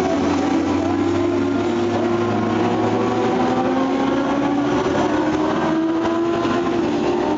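Racing motorcycles on a circuit, their engines running hard at high revs. Several engine notes overlap and rise slowly in pitch as the bikes accelerate.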